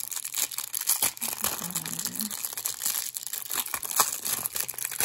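Clear plastic wrapping crinkling and crackling as hands pull it open around a silicone resin mold, in a dense run of small sharp crackles.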